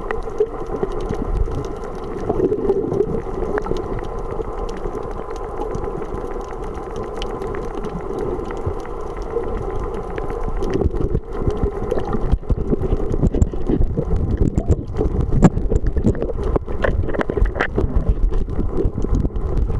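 Muffled underwater sound heard through a waterproof camera housing: a steady low rumble. From about ten seconds in there are more and more crackling clicks and knocks as a diver's bubbles and moving gear come close to the camera.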